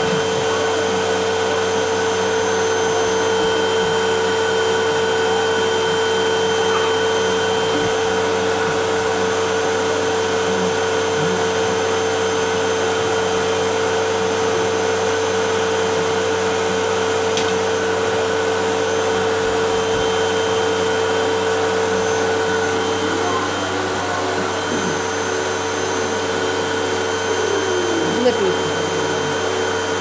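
Upright vacuum cleaner running with a steady motor drone and a constant hum, its level dipping slightly about two-thirds of the way through.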